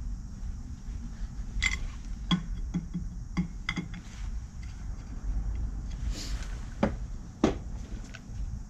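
Scattered light metallic clicks and clinks from working a hydraulic shop press while a new bushing is pressed into a control arm, over a steady low hum.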